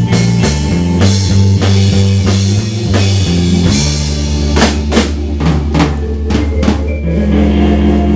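Live rock band playing: a Gretsch drum kit, bass guitar and electric guitar. The bass line moves under steady drum hits, the drums break into a fill about halfway through, and near the end the band holds a ringing chord.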